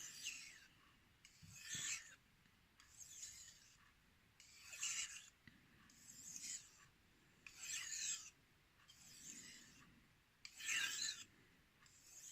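Steel knife edge drawn across a 5000-grit whetstone in light stropping passes from tip to heel, the final stage of sharpening once the burr is gone. It makes a faint scraping hiss about nine times, roughly one stroke every second and a half.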